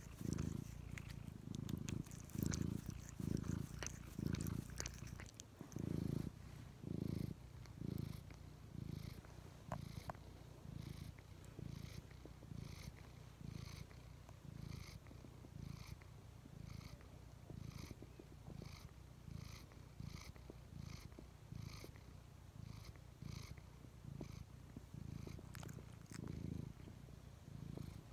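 Old orange tabby cat purring right at the microphone, the purr coming in even pulses more than once a second. It is louder through the first several seconds, then settles to a softer, steady purr.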